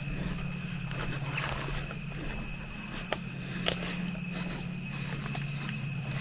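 Footsteps of hikers on a forest trail, a scattered crunching and clicking, over a steady high-pitched drone of forest insects and a low hum.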